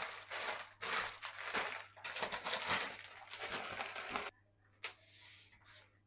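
Rustling and crinkling, like a bag or wrapping being handled, in several close bursts that stop a little over four seconds in.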